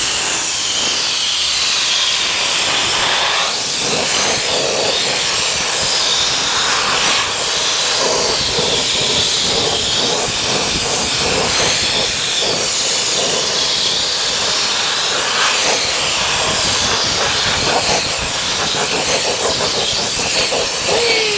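Compressed air hissing steadily through a Fluid Film undercoating spray gun as it sprays a fine mist of oil from its siphon cup; the nozzle is too fine and doesn't spray enough.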